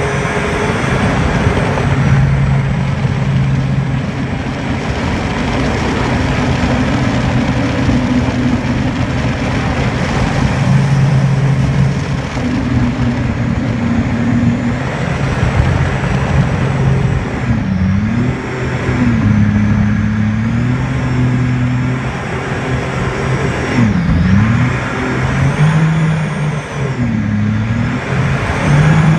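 230 hp jet boat engine running at speed over the rush of water and wind past the hull. In the second half its revs drop and climb back sharply about three times.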